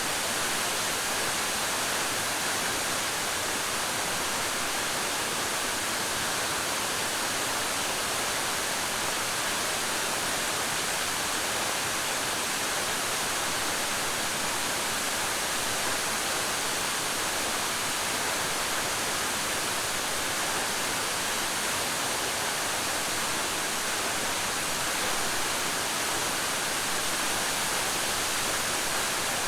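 Waterfall: steady, even rush of falling water with no break or change.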